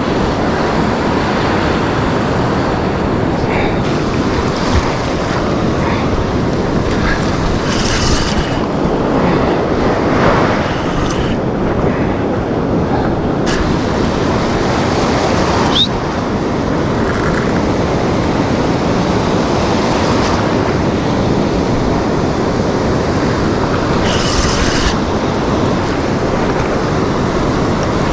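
Steady wind rumbling on the microphone over surf breaking and washing up the beach, with brief hissy swells as waves break.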